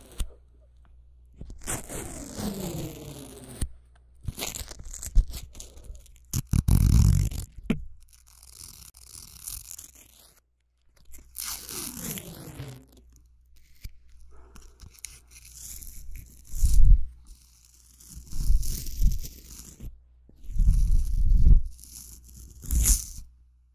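Ripping, scratchy handling sounds close to a homemade binaural (3D) microphone, in spells of a second or two, with several loud low thumps in the second half.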